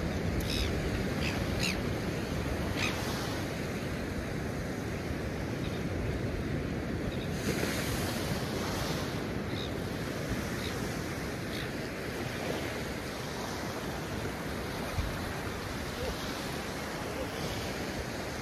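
Surf breaking and washing on a sandy beach, a steady rushing wash of waves, with some wind buffeting the microphone.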